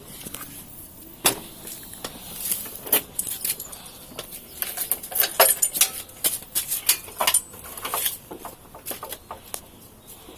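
Irregular clicks and clinks of hard objects being handled, coming thick and fast through the middle.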